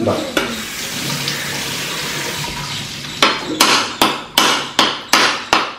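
A steady rushing noise, like running water. About halfway through it gives way to a run of sharp, evenly spaced knocks, about three a second.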